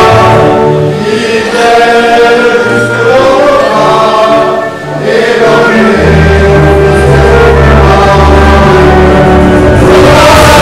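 Music played loudly over a sound system, with singing voices over a full backing and a heavy bass. The music eases off briefly just before five seconds in, then comes back.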